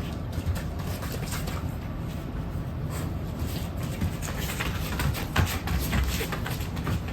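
Steady low rumble of typhoon wind, with small Shiba dogs moving about over it: a run of clicks and scuffs, busiest in the second half.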